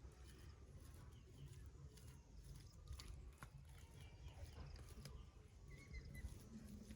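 Near silence: faint background with a few soft, scattered taps and clicks.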